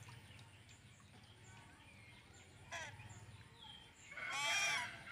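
A short animal call near the end, rising and falling in pitch, over a low steady hum.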